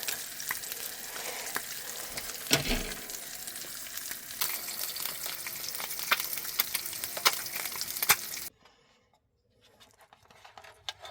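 Bacon frying in a pan: a steady sizzle with many small pops and a louder knock about two and a half seconds in. The sizzle cuts off suddenly a little after eight seconds, leaving only a few faint ticks.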